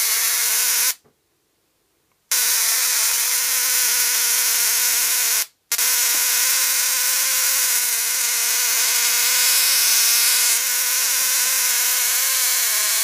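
Homemade Tesla coil driven by a ZVS driver and flyback from 12 volts, its high-voltage sparks buzzing loudly with a hiss. It cuts out about a second in, comes back on just over two seconds in, and drops out for a moment about halfway through.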